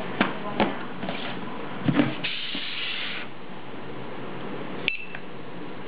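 Handheld barcode scanner giving one short, high beep with a click about five seconds in, the good-read signal as it scans the barcode label on a shipping box. Before it, a few light knocks and a brief rustle as the boxes are handled.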